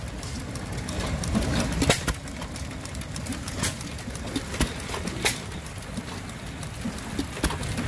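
Small antique gas engine running a domestic water pump, with sharp firing pops at uneven intervals over a steady low rumble, and water from the pump splashing into a tank.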